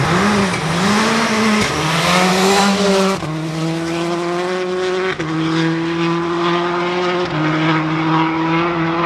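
Hyundai Accent WRC rally car's turbocharged four-cylinder engine revving hard as the car takes a bend, the pitch rising and falling. It then holds on the throttle as the car pulls away, the engine note stepping with each gear change.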